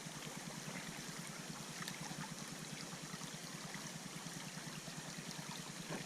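Creek water running, a steady even rushing.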